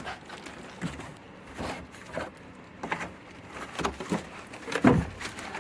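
Handling noises as a MIDI keyboard is unpacked from its box: scattered rustles and knocks of packaging, with one louder thump near the end.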